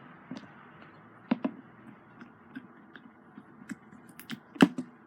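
Slime with foam beads in it being squished and poked by hand, giving irregular small clicks and pops, with a sharper snap at about a second and a half in and another near the end.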